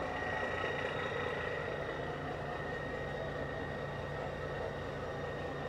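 Fishing boat's diesel engine idling, a steady running sound with a faint constant high whine.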